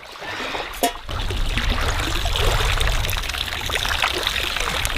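Water splashing and trickling, with many small drips and sloshes, starting about a second in after a single knock.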